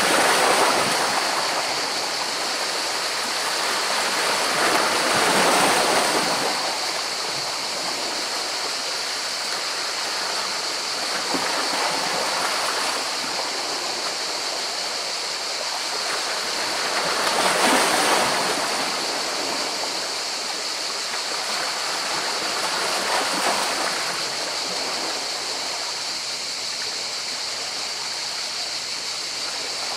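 Sea waves washing in among rocks: a steady rush of water that swells with each incoming surge, about four times, the biggest about a second in and near eighteen seconds.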